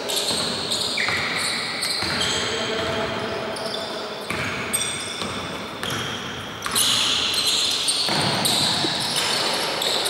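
Sounds of a basketball game on an indoor court: the ball bouncing on the hardwood, short high squeaks of sneakers and players' voices calling out, getting louder about two-thirds of the way through.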